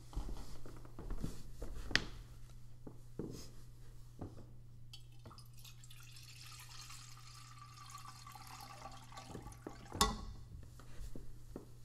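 Water poured from a pitcher into a metal baptismal font, a steady splashing trickle lasting about five seconds. A few light knocks and clicks come before the pour, and a sharp knock as it ends.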